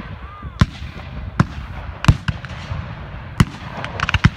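Black-powder muskets firing in scattered single shots, roughly one a second, then a ragged run of several shots close together near the end.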